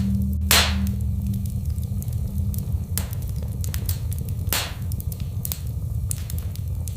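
Wood fire crackling: a low steady rumble with sharp, irregular pops, the loudest about half a second in and more around three and four and a half seconds.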